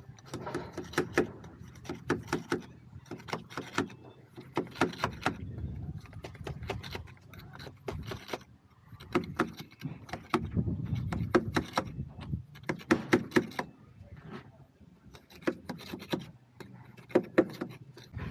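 Irregular clinks, taps and scrapes of bricklaying tools working brick and mortar, with bursts of quick taps and a low rubbing rumble in between.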